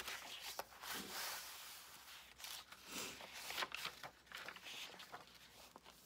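Paper pages of a handmade journal being flipped and handled: a run of soft rustles and page flicks, several in a row, fading toward the end.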